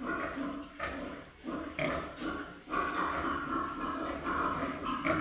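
Pigs grunting in short, repeated calls that run together into a denser, unbroken chorus about halfway through.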